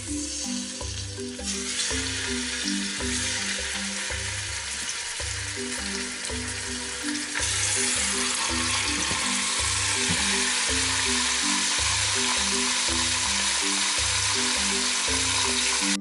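Raw chicken pieces sizzling as they fry in hot oil in a saucepan. The frying grows louder about a second and a half in, and again around seven seconds in as more pieces are laid in. A music track with a steady low rhythm plays underneath.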